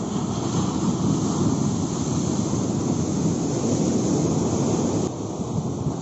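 Sea surf breaking and washing up a sandy beach: a steady, continuous rush of foaming water.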